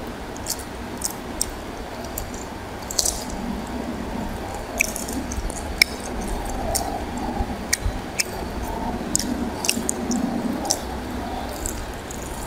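Fingers squishing through rice and chicken curry on a plate as the food is mixed by hand, with scattered short, sharp clicks and wet smacks of eating over a steady low hum.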